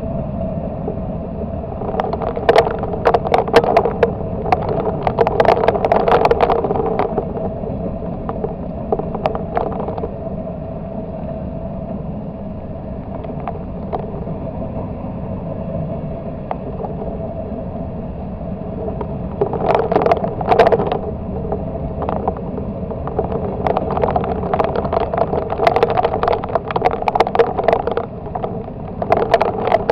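Freight train cars rolling past on the track: a steady rumble and hum, with clusters of sharp clacks as the wheels cross rail joints, busiest a couple of seconds in and again over the last third.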